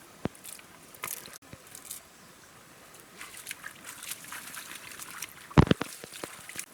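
Water sloshing and splashing, with scattered small clicks and one loud sharp knock a little over five seconds in.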